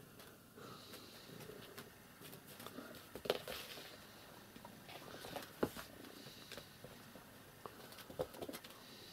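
Faint scuffs and light taps of a kitten's paws on a rug and wooden floor as it pounces on and bats at a dead sparrow, with a few sharper taps, the loudest about three seconds in.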